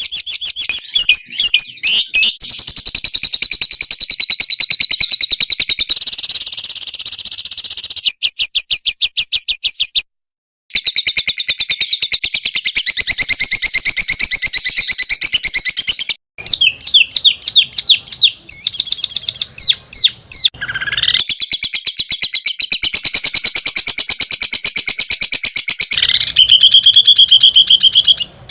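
Songbird song, loud and high-pitched: fast chattering trills and chirps, with a run of rapid evenly repeated notes around eight seconds in and abrupt cuts, including a brief silence about ten seconds in.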